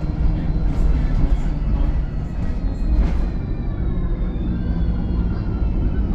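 VDL SB200 Wright Pulsar 2 bus running, a steady low rumble with several whining tones that glide slowly up and down as the engine and driveline change speed, and a few light knocks and rattles.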